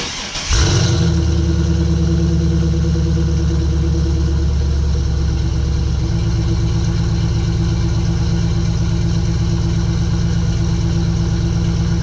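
Pontiac Trans Am WS6's LS1 V8 firing up with a short burst and settling into a steady idle, heard at the tailpipes through aftermarket long-tube headers.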